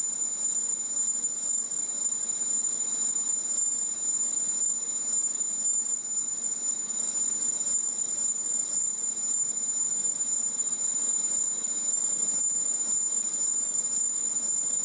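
Small Monarch metal lathe running with a turbocharger exhaust housing spinning in its chuck: a steady high-pitched whine over an even running hum.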